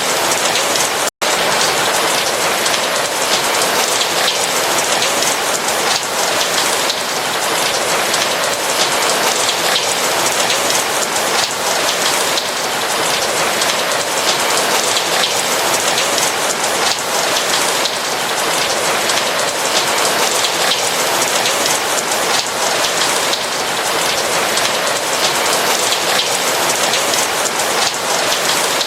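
Steady rain falling, an even hiss of countless drops, broken by a split-second dropout to silence about a second in.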